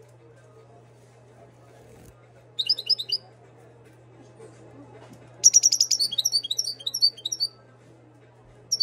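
Caged Moroccan goldfinch singing: a short twittering phrase about three seconds in, then a longer phrase that opens with a fast trill and runs into quick twitters, and one more brief note near the end. A steady low hum lies underneath.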